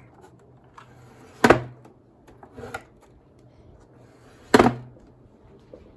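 Skyworth 27X1Q monitor being slid up and down on its stand's sliding-rail height adjustment, giving two sharp knocks about three seconds apart, with a fainter knock between them.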